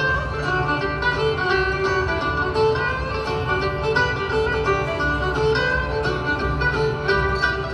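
Bluegrass band playing an instrumental live on stage, with mandolin, fiddle and acoustic guitars.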